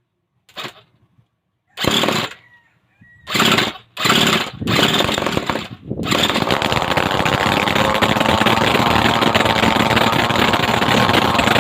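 Two-cylinder two-stroke brush cutter engine being started: it fires in a few short bursts and dies, then catches about six seconds in and runs on steadily and loudly.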